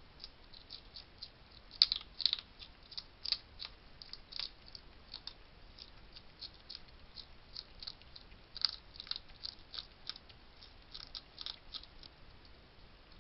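Hedgehog crunching dry food: an irregular run of crisp clicks, several a second, loudest about two seconds in and again about nine seconds in, stopping shortly before the end.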